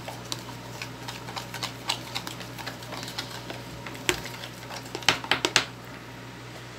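Spoon clicking and scraping against a plastic tub while stirring slime, in irregular light ticks, with a quick run of louder clicks about five seconds in.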